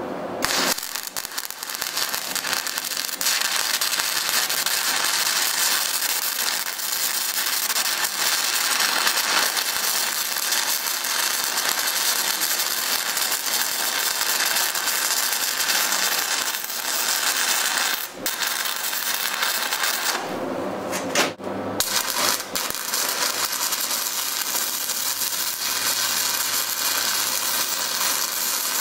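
Stick welding arc crackling and hissing steadily as an electrode burns along a weld. About two-thirds of the way through the arc cuts out for about a second, then strikes again and keeps crackling.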